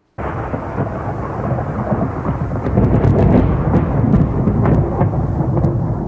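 Thunderstorm recording: thunder rumbling over rain, cutting in suddenly and growing loudest about three seconds in, with a few sharp crackles.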